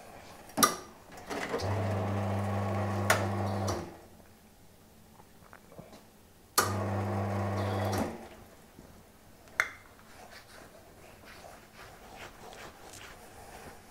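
Electric coffee grinder running in two short bursts, first for about two seconds and then for about a second and a half, each with a steady motor hum under the grinding noise. A few sharp clicks and knocks come between and after the bursts.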